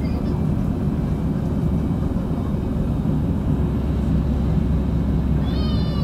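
Steady low rumble of an airliner cabin in the climb: jet engine and airflow noise. Near the end a short high-pitched cry rises over it.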